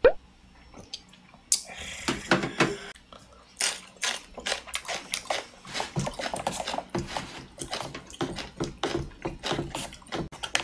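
The paper lid of an instant cup ramen crackling and tearing as it is handled and peeled off, followed by wooden chopsticks stirring the noodles and soup inside the paper cup. There is a short sharp sound right at the start.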